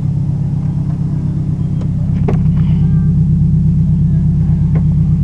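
Subaru Impreza WRX STi's turbocharged flat-four engine running steadily, heard from inside the cabin as a low drone that gets a little louder about two seconds in.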